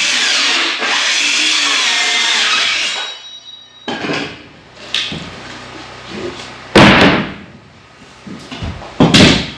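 Battery circular saw ripping a sheet of OSB for about three seconds, then the blade winding down with a falling whine. Then come a few knocks and, near the end, two loud bangs as cut OSB pieces are handled and dropped on the wooden floor.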